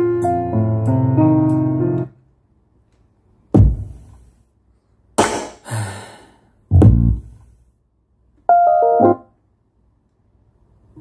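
Recorded music. A piano-led passage stops about two seconds in. Then come a few separate hits with silence between them: two deep bass hits, a crash-like burst and a short chord stab. Steady music starts again at the very end.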